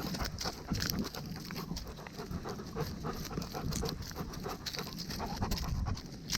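A dog panting close to the microphone as it walks, with irregular rustles and footfalls.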